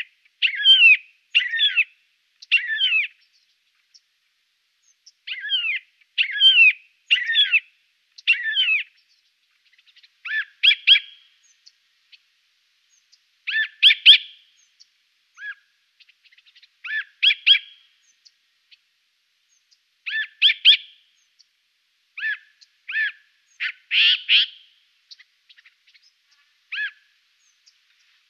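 Siberian jay calling repeatedly: a series of short calls, often two or three close together. The calls in the first third slide down in pitch; later ones are shorter and harsher.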